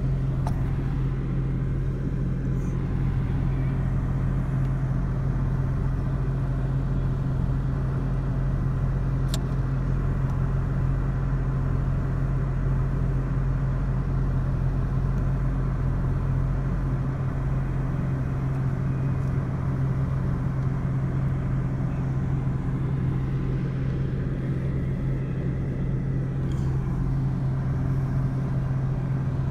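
Car engine idling with a steady low hum, heard from inside the car's cabin.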